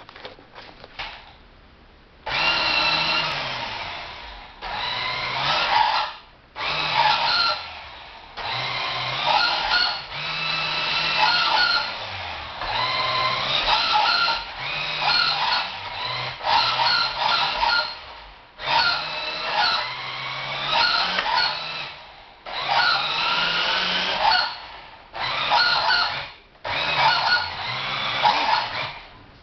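Tyco Turbo Hopper RC buggy's electric motor and gears whining in repeated bursts of a second or two as it is driven, starting and stopping, the pitch rising and falling within each burst.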